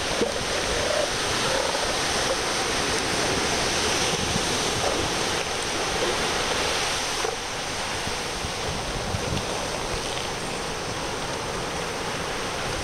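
Steady rush of ocean surf with wind on the microphone, and a few faint low calls from elephant seals on the beach.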